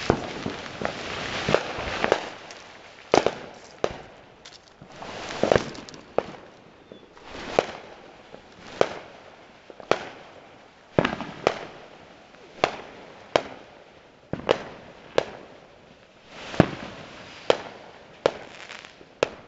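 Fireworks going off in a steady string of sharp bangs, about one or two a second, several of them preceded by a short swell of hiss.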